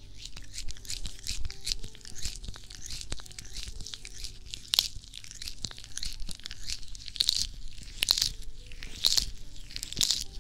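Hands rubbing, scratching and cupping over the silicone ears of a binaural microphone, heard as dense crackling and scratchy rubbing right at the ears, with louder rubbing swells now and then. Soft background music runs underneath.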